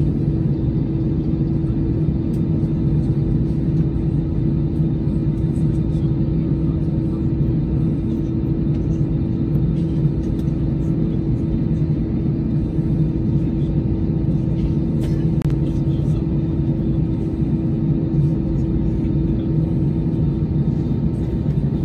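Steady low rumble and hum of an airliner being de-iced, heard from inside the cabin while a de-icing truck sprays fluid over the wing and window, with scattered faint ticks.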